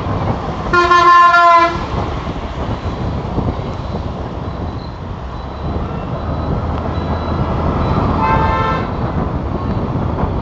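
A horn sounds loudly for about a second near the start and again briefly and more faintly near the end, over a steady low rumble.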